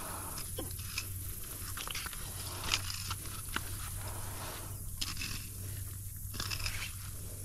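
Fillet knife cutting through a large blue catfish, with irregular crunching and scraping strokes as the blade separates the fillet from the body.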